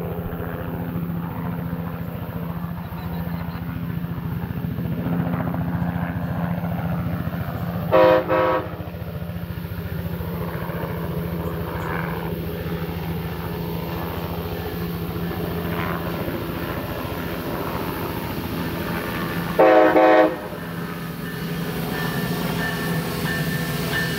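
Horn of a Brightline passenger train's Siemens Charger locomotive sounding two short blasts about twelve seconds apart, over a steady low hum.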